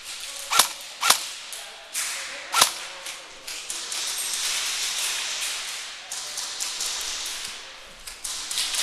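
Airsoft electric gun, a D-Boys KAC PDW, firing single shots: three sharp cracks within the first three seconds. Then comes a few seconds of rustling noise.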